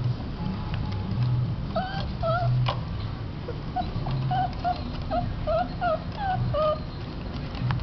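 Beagle puppies whimpering: a run of short, high whines, each rising and falling quickly in pitch, starting about two seconds in and going on until near the end.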